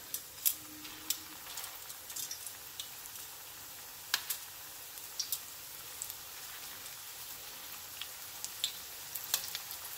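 Corn tortilla flautas sizzling steadily as they shallow-fry in hot oil in a stainless steel skillet, with scattered sharp pops and clicks.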